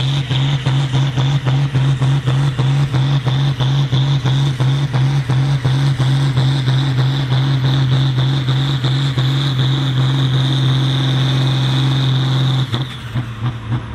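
Ford TW-25 tractor's six-cylinder turbo diesel engine at full load during a pull, running hard with a steady low drone, a rapid even pulsing and a high whine over it. Near the end the engine note drops away as the throttle comes off.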